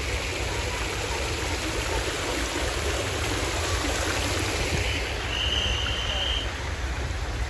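Fountain jets splashing into a pool in a steady rush of falling water. A brief high tone sounds for about a second, about five seconds in.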